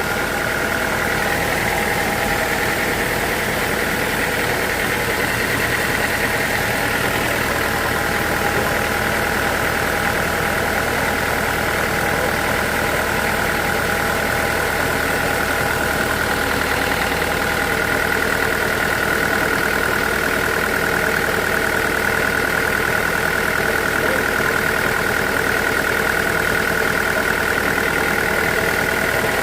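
Sawmill machinery running steadily: a constant motor drone with a steady high whine.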